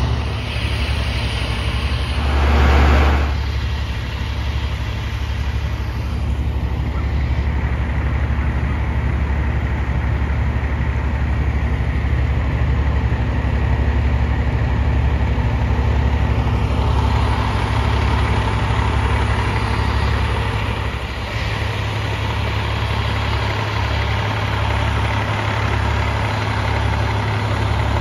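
Diesel engines of parked fire trucks idling steadily, with a brief louder rush of noise about three seconds in.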